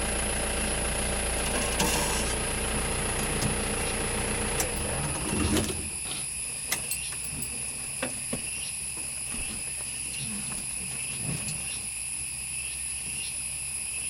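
Safari vehicle's engine idling, then switched off about five and a half seconds in. After it stops, a steady high insect hiss and a few faint clicks remain.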